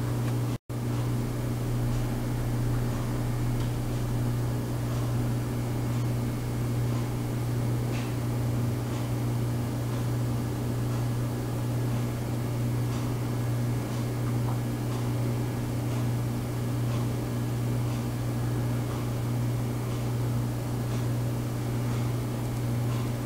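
Steady low hum with hiss over it. The sound drops out for an instant about half a second in, and faint scattered ticks sound now and then.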